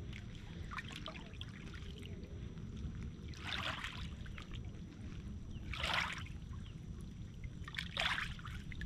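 Shallow bay water lapping and splashing softly at a pebbly shoreline, with three brief splashy swells, about every two seconds in the second half, over a steady low rumble.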